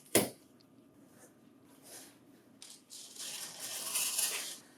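A cardboard shipping box being opened and its packing material handled: a sharp knock just after the start, then rustling and scraping of packing material for about two seconds near the end.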